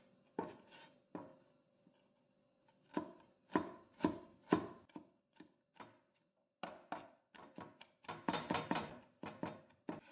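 Steel cleaver mincing crushed garlic cloves on a wooden cutting board: irregular chopping knocks, with a pause of about a second and a half after the first few and a quicker run of chops near the end.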